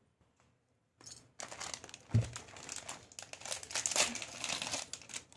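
Thin plastic jewellery packet crinkling and rustling as it is handled, starting about a second in. A soft thump about two seconds in is the loudest moment.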